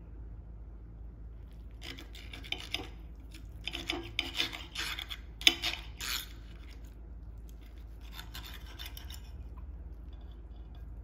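Knife and fork scraping and clinking on a ceramic plate while cutting through eggs Benedict on a toasted English muffin. The sound comes in a few short spells of rasping strokes, with one sharp clink of metal on the plate about halfway through.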